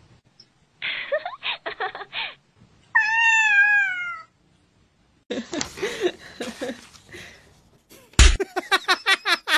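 Domestic cat meowing: one long, clear meow about three seconds in, its pitch rising slightly and then falling away at the end. Shorter vocal sounds come before and after it, and near the end there is a quick run of sharp clicks and thumps.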